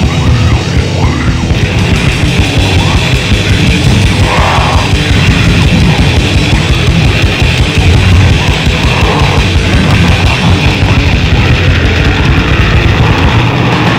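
Grindcore/death metal recording: heavily distorted guitars over fast, relentless drumming, dense and loud throughout.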